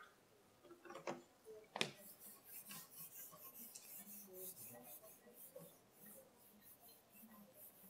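Faint dry-erase marker writing on a whiteboard: a run of short, scratchy strokes. Before them, a little over a second in and again just under two seconds in, come two sharp clicks.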